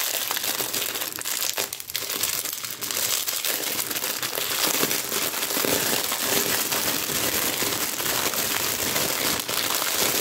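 Clear plastic packaging bag crinkling and crackling continuously as it is handled and unwrapped by hand.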